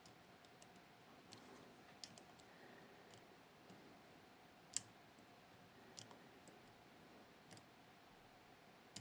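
Faint, scattered small clicks of a dimple lock pick working the pins of a Miwa Kaba Star Orion lock, about one every second, with one sharper click near the middle.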